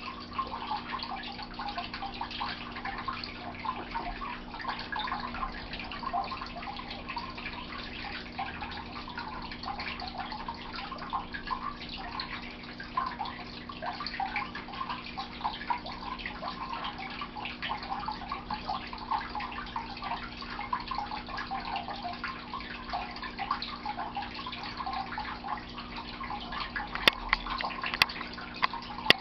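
Continuous trickling and dripping water over a steady low hum, with two sharp clicks near the end.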